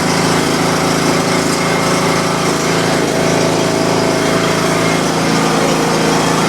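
John Deere LA100 lawn tractor's engine running steadily just after a cold start with the choke pulled all the way up.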